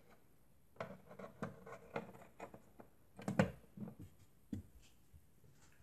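Faint clicks and knocks of a hand handling cables and pushing the power plug into a Helium hotspot miner to switch it on. The loudest knock comes about three and a half seconds in.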